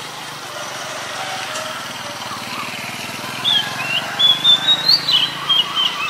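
Oriental magpie-robin singing: a little past halfway in, a quick run of sharp whistled notes, some rising and some falling, lasts to the end. A steady low hum sits underneath.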